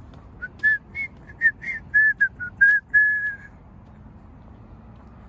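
A person whistling about a dozen quick notes that step up and down in pitch, ending on one longer held note, stopping about two thirds of the way through.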